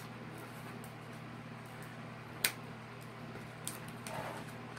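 Soft handling of a plastic sheet over a low steady room hum, with one sharp click about halfway through and a smaller one later.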